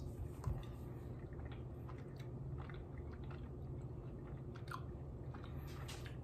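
A person biting and chewing a soft sour gummy worm, with small wet mouth clicks scattered throughout, over a low steady hum.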